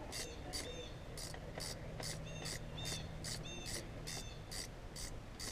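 Ratchet wrench clicking in quick, even short strokes, about two to three a second, as it works a bolt at a Pontiac Grand Prix's alternator.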